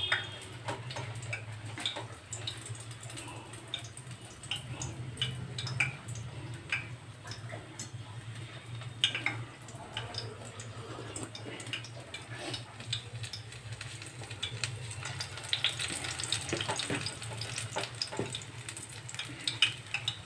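Spinach pakoras frying in hot oil in a kadai, with scattered crackles and sizzles throughout, over a steady low hum.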